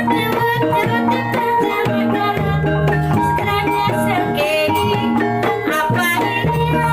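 Javanese kuda lumping-style ensemble music: hand drums beating a fast, busy rhythm over held pitched notes and a repeating low bass pattern.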